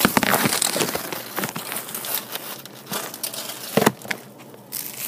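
Close rustling and crinkling handling noise with many small clicks, and a louder knock about four seconds in, as the phone is moved about and rubbed against.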